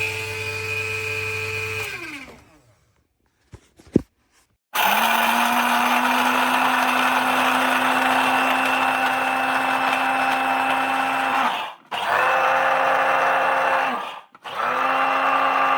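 Electric blade coffee grinder's 300 W motor whirring, then winding down to a stop about two seconds in. After a click it starts again, spinning up and running steadily for several seconds. It is then stopped and restarted twice in quick succession, pulsed.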